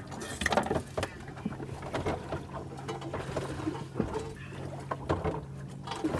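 Boat engine idling with a steady low hum, over scattered light clicks and taps of a knife and raw fish being handled on a plastic cutting board.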